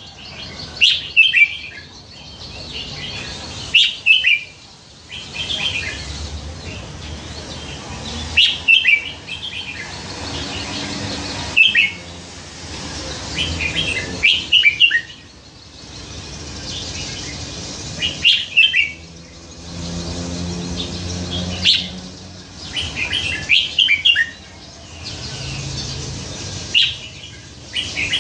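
Red-whiskered bulbul singing: short phrases of several bright, quick whistled notes, repeated every few seconds.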